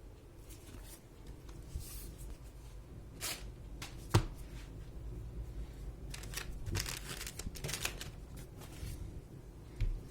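Hands handling a laptop's unboxing packaging: rustling and tearing of paper and plastic wrap, with scattered clicks and one sharp knock about four seconds in.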